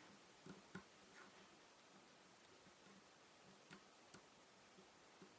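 A few faint, scattered clicks of a lock pick working the pins inside a Mul-T-Lock MT5 pin-in-pin cylinder held under tension, heard over near silence.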